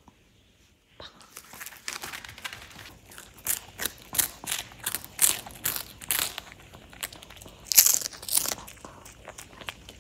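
Maltese dog crunching and chewing a dried treat strip: a run of sharp, irregular crunches starting about a second in, loudest a little before 8 s and again just after.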